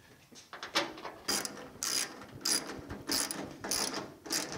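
Hand ratchet clicking in a run of short strokes, roughly one every half second, as door hinge bolts are run in snug.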